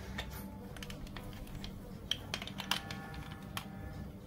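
Plastic marble-run track pieces and building bricks clicking and knocking as they are handled and fitted together, with a few sharper snaps a little past the middle and a short ringing note just after them.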